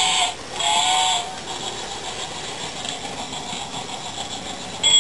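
Toy train running around its track, its motor and wheels rattling, loudest in the first second or so while it passes nearest, then quieter and steady. Right at the end a steady high electronic tone starts.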